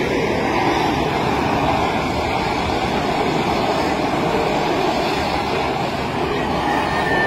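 Two pickup trucks' engines running at full throttle under heavy load as they pull against each other, with tyres spinning on loose gravel. The sound is a loud, steady, noisy drone with no breaks.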